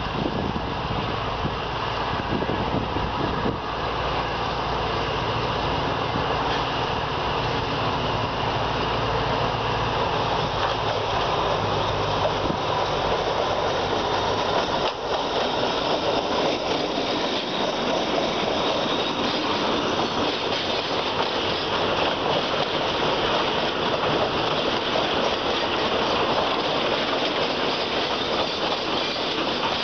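A State Railway of Thailand diesel locomotive hauling a train of oil tank wagons approaches and passes. Its engine drone builds through the first half, then gives way to the steady rumble and rush of the tank wagons' wheels rolling by on the rails.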